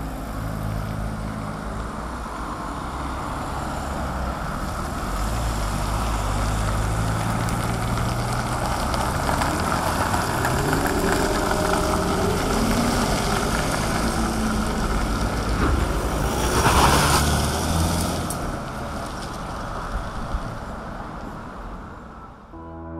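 Cars of a motorcade, among them a black limousine, driving past on a street: engines running and tyre noise. The sound swells as one vehicle passes close, about two-thirds of the way through.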